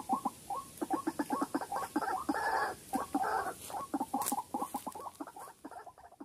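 White-breasted waterhen calls: a fast run of short croaking notes, several a second, with two harsher, longer notes in the middle.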